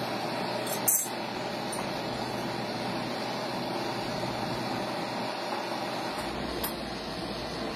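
A knife blade cutting and scraping along the seam of a plastic battery case, against a steady background noise, with one sharp click about a second in.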